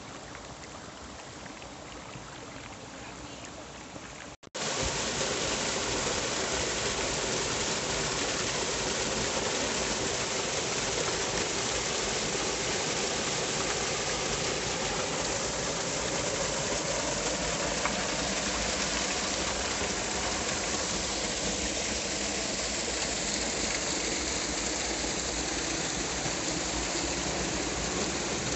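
A small stream flowing over rock. About four seconds in, after a brief cut, it gives way to the louder steady rush of a small waterfall splashing into a pool.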